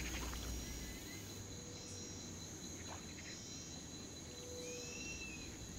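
Marsh ambience: a steady, high-pitched insect drone of the cricket kind, with a couple of faint short whistled notes and a single soft click about halfway through.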